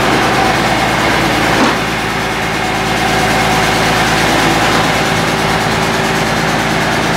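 A heavy truck engine running steadily at idle, the Berliet military truck whose crane is taking the weight of the engine.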